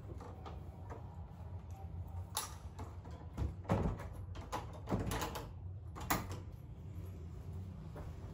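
A room door being opened and shut, with several knocks and clicks of the latch and handle, the loudest a little under four seconds in, over a steady low hum.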